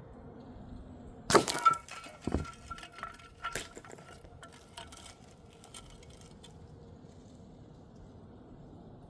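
A sharp crack, then glass breaking, with pieces clinking and knocking for a few seconds as they fall: a glass bottle target shattered by a .22 pellet.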